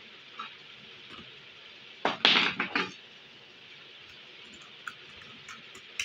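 Hand work on a plastic electrical switchboard: a screwdriver and wire being handled give scattered light clicks and one short clatter of hard knocks about two seconds in, over a steady background hiss.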